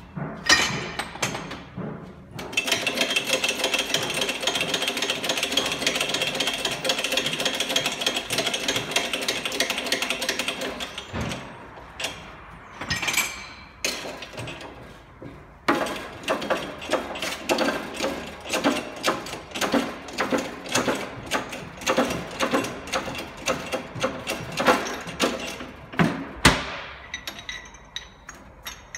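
Hydraulic shop press working to push a transfer case intermediate shaft and its bearing out of the housing. There is a long stretch of dense, steady rattling, and later a run of rapid metallic clicks and knocks.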